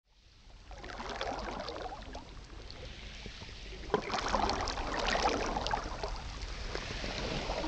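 Shallow water lapping and trickling over a pebbly shoreline, fading in from silence, with small irregular splashes and crackles.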